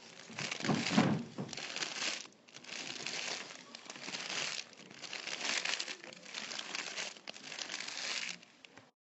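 Material crumpled and crinkled by hand in irregular bursts of about a second each, a home-made sound effect, with a low thump about a second in.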